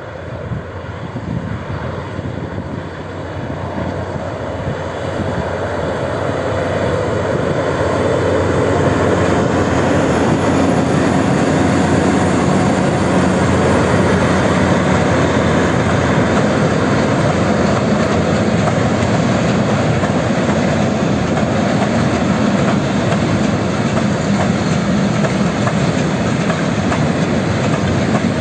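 Diesel freight locomotive approaching and passing with its engine running, growing louder over the first several seconds. It is followed by a long string of silo hopper wagons rolling past, their wheels rumbling steadily on the rails.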